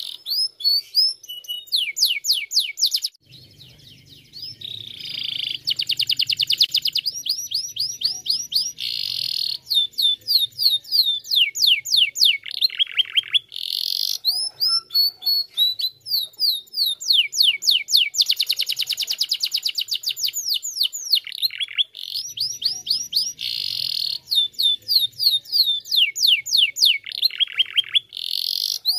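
Domestic canary singing a long, continuous song of fast trills and rolls: rapid runs of repeated high sweeping notes, with a short lull a few seconds in.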